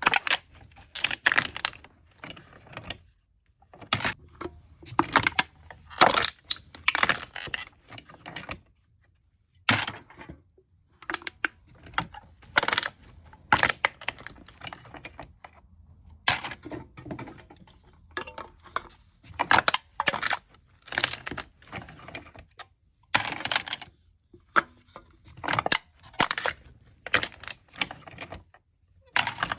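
Aluminium cans being crushed: crisp crackling crunches of the metal coming in bursts of a second or two, with short pauses between them.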